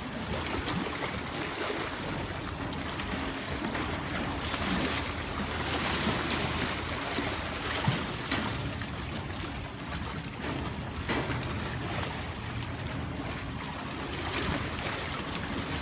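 Lake Michigan waves washing against a rock breakwater, a loud steady rushing of water, with wind on the microphone. A brief sharp knock about halfway through.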